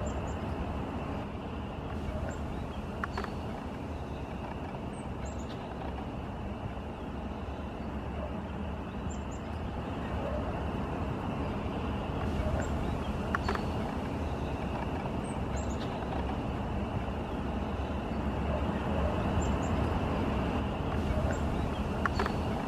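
Steady rushing background noise, with faint, very short, high-pitched bird notes a few times.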